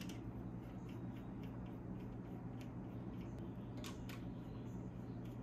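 Light metallic clicks and ticks as steel nuts are spun down by hand onto ARP cylinder head studs, with two sharper clicks close together about four seconds in, over a steady low hum.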